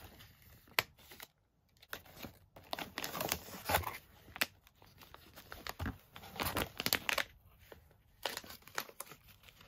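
Plastic wax melt packaging being handled: a clamshell and an iridescent plastic pouch crinkling and tapping in the hand, in irregular bursts that are busiest about three and seven seconds in.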